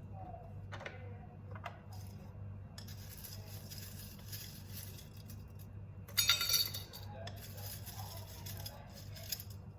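Light clinks and clatter like tableware being handled, with a louder clatter about six seconds in, over a steady low hum.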